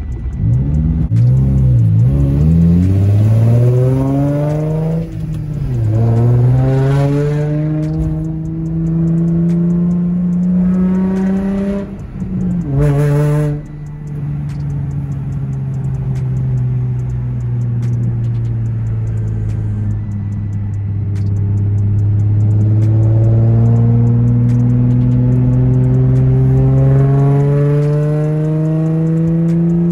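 Infiniti G35 coupe's 3.5-litre V6 heard from inside the cabin, accelerating hard through the gears. The engine note climbs and drops at upshifts about five and twelve seconds in, holds near steady at cruising revs, and then climbs slowly again near the end.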